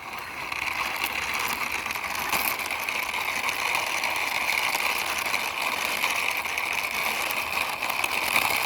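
Toy racing car pushed along by hand, its plastic wheels rolling with a steady whirring that starts suddenly and holds even.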